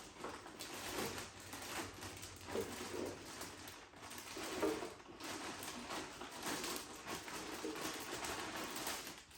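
Continuous rustling and light clatter of plastic packaging and food containers being handled.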